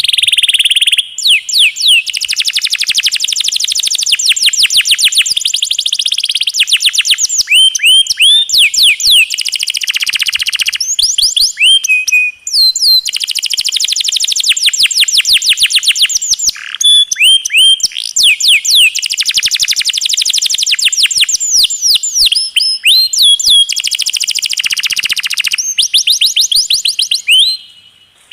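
Domestic canary singing a long, fast song: rapid rolls of quickly repeated notes broken by swooping whistled notes, with brief pauses about a second in, near the middle and near the end.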